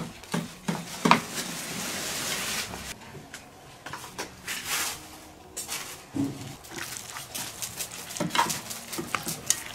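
Chopsticks and a spoon clinking and scraping against a stainless steel bowl as sliced raw meat is stirred in its seasoning, with scattered sharp taps throughout.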